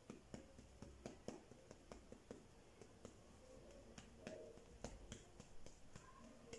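Near silence broken by faint, irregular small clicks and taps, as of hands handling small objects close to the microphone.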